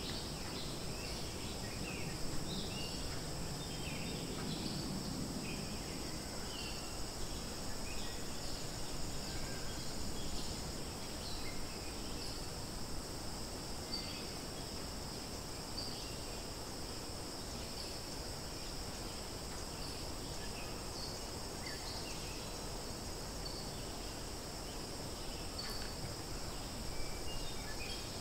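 Steady high-pitched drone of insects, with scattered short high chirps over a low rumble of outdoor noise.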